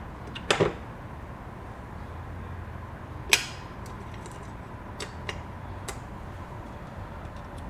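Small metal parts of a sewing machine's zigzag mechanism clicking and tapping as they are handled and fitted: a quick double click about half a second in, a sharper click a little past three seconds, and a few lighter ticks a couple of seconds later.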